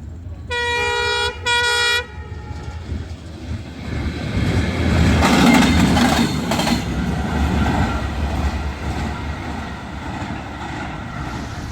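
A diesel locomotive's multi-tone horn sounds two short blasts, then the train passes close by. The engine and wheel rumble is loudest about five to six seconds in and then eases off gradually as the coaches run past.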